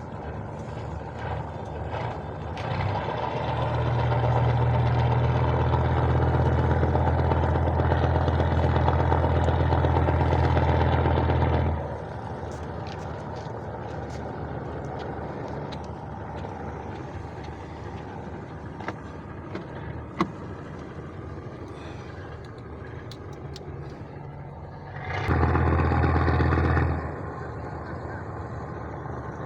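Large engine running with a steady low hum, swelling louder for about eight seconds early on and cutting back sharply, then again briefly for about two seconds near the end.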